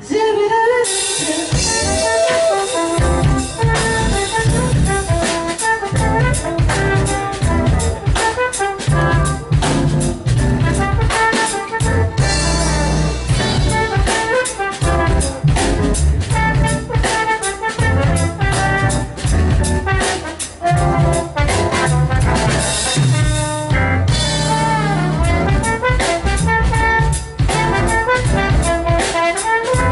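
Live jazz band playing: a trombone leads over a busy drum kit and keyboard, with no singing.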